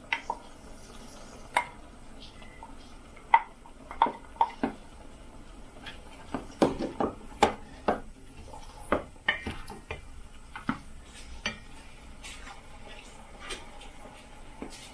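Wooden spoon stirring whole cranberries in a stainless steel saucepan, with irregular clicks and knocks of the spoon against the pan that thin out near the end.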